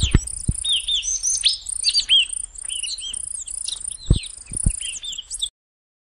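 A chorus of small birds chirping and twittering: many short, curved whistled notes over high trilling. A few low thumps sound near the start and around four seconds in, and the sound cuts off suddenly near the end.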